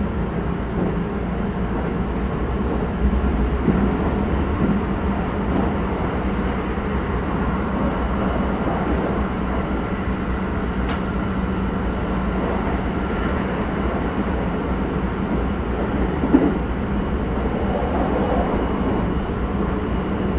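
Keisei 3100 series electric train (Toyo hybrid SiC-VVVF control) running at a steady speed, heard from inside the passenger car: a constant rumble of wheels on rail with a steady low hum. One brief knock comes about three-quarters of the way through.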